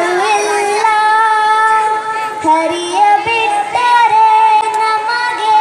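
A girl singing long held notes of a devotional song line through a handheld stage microphone.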